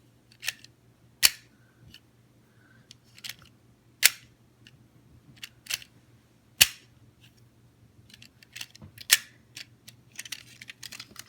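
Sharp plastic clicks and snaps from a Trackmaster Crash and Repair Salty toy engine being handled: loud single snaps a second or more apart, then a run of lighter ticks near the end.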